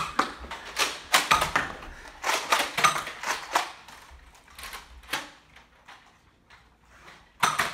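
Nerf blasters in use: a string of sharp, irregular clicks and knocks, bunched in quick clusters about a second in and again around two to four seconds in, then fewer and fainter.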